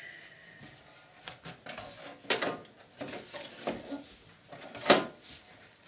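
Top cover of a Sanyo VHR-7700E video recorder being fitted back over its chassis: a run of knocks, scrapes and clatters, with the loudest clunks about two seconds in and near five seconds.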